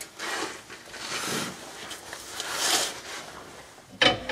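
Carrier bearing adjusters on a Dodge 9 1/4 axle being worked with an adjuster tool to shift the differential carrier: a few short scraping strokes, then a sharp metal knock near the end.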